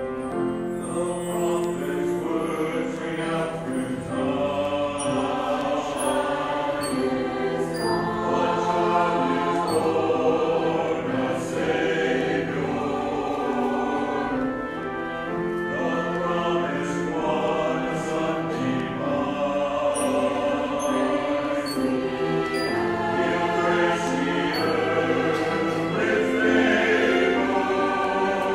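Church choir singing in parts with a string ensemble of violins and cello accompanying, one continuous piece.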